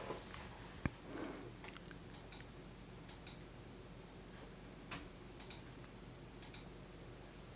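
Computer mouse button clicks, mostly in quick press-and-release pairs, spaced a second or so apart, with one duller single knock about a second in, over a faint steady hum.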